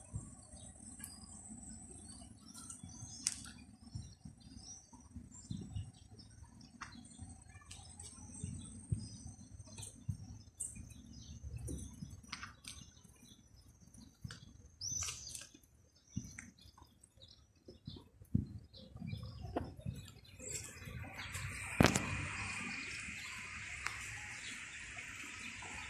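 Park ambience: scattered bird chirps and short calls over a faint, steady, high-pitched buzz. About three-quarters in, a steady hiss comes in, and a sharp click follows shortly after.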